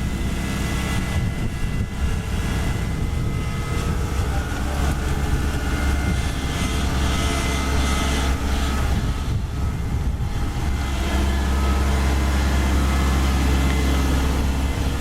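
Kubota DC-70 rice combine harvester's diesel engine running steadily with a deep hum and a thin whine over it, growing louder about a third of the way in.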